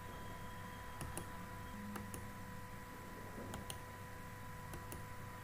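Faint computer mouse clicks, four quick pairs about a second apart, over a steady electrical hum.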